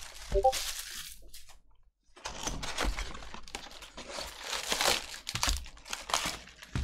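Plastic shrink-wrap crinkling as it is crumpled off a trading-card box, then the cardboard lid is opened and the foil-wrapped card packs rustle and crinkle as they are pulled out. The crinkling stops briefly about two seconds in.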